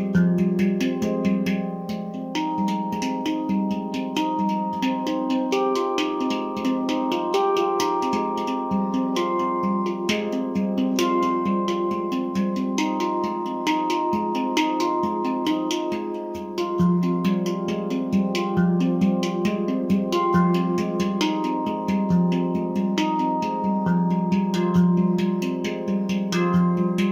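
Nimo Sounds handpan tuned to an F low Pygmy scale, played by hand: a continuous flow of struck, ringing metal notes over a recurring low bass note, with many quick finger taps between them.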